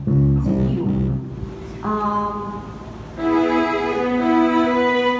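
Live band music: a few short plucked bass and guitar notes at the start, then long held melody notes from about two seconds in.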